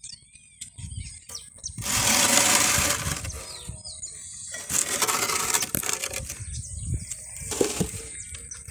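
A few short bird chirps, then three loud bursts of hissy noise about a second long each, the first the loudest, over a thin steady high whine.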